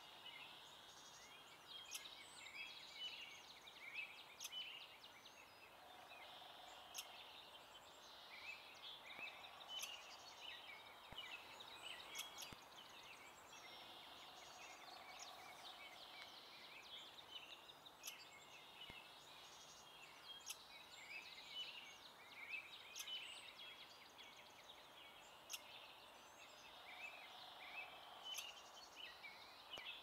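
Faint dawn chorus of many songbirds chirping and trilling without pause, with a few sharp clicks and a fainter, lower call every several seconds.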